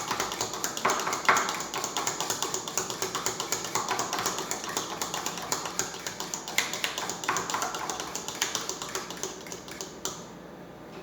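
A fork beating raw eggs in a bowl: rapid, even clicks of the fork against the bowl, several a second, stopping about ten seconds in.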